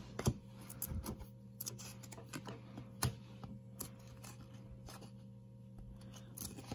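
Glossy football trading cards being flipped through by hand, each card sliding off the stack with faint, irregular clicks and ticks, two of them a little louder. A steady low electrical hum sits underneath.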